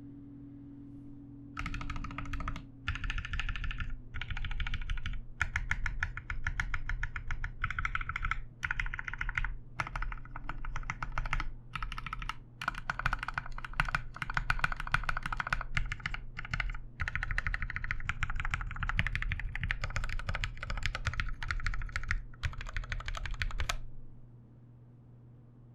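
Fast typing on a Sneakbox MGA Standard Alice-layout mechanical keyboard with lubed 67.5 g Gateron Black Ink linear switches on a PLA half plate and GMK keycaps: quick runs of keystrokes broken by brief pauses. The typing starts about one and a half seconds in and stops a couple of seconds before the end.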